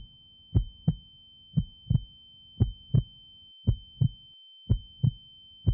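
Heartbeat sound effect: pairs of low thumps, lub-dub, about once a second, over a thin steady high-pitched tone.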